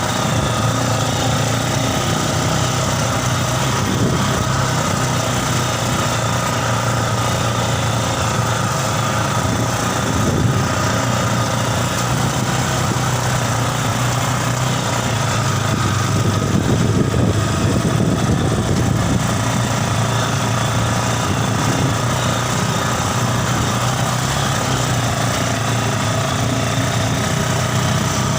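Single-cylinder four-stroke engine of a Yamaha Scorpio Z, fitted to a mini buggy, running at a steady speed with an unchanging pitch.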